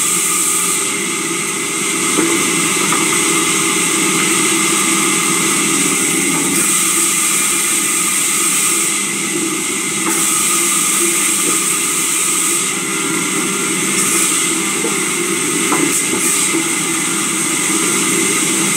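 Sawmill saw running steadily and cutting timber as planks are fed through it, a loud continuous machine noise whose high part shifts every few seconds as the cut changes.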